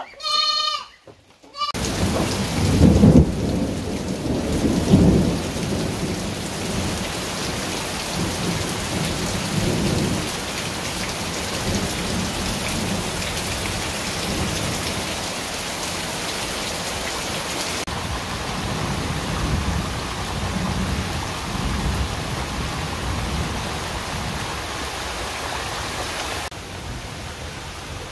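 A goat bleats briefly at the start, then heavy rain pours down steadily with low rumbles of thunder, strongest in the first ten seconds. The rain drops to a lighter level near the end.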